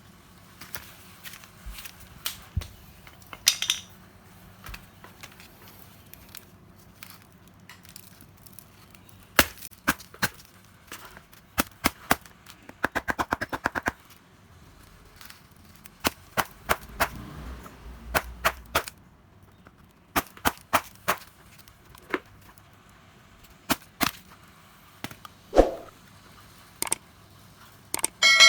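Tools and parts clicking and knocking at irregular moments during bench work on a Snap-on 18V impact wrench. About halfway through there is a fast, even run of clicks lasting a second or so. A metal part rings out near the end.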